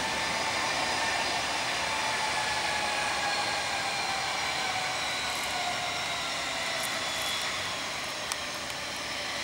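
Airbus A319's twin IAE V2500 turbofan engines running at taxi power as the jet rolls slowly along the taxiway. Several whining tones slide slowly down in pitch over a steady rush.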